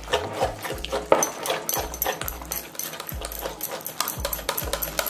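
Small wire whisk beating a thick yogurt and mango mixture in a glass bowl: a quick, steady run of clicks and scrapes as the wires strike and drag against the glass.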